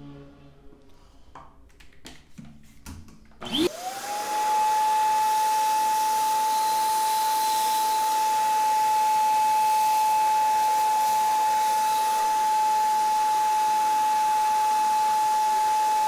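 Wap GTW Bagless 1400 W wet/dry vacuum cleaner switched on about three and a half seconds in: its motor whine rises quickly and settles into a steady high tone over rushing air. It runs steadily while the crevice nozzle is passed over a cupful of water spilled on a marble surface.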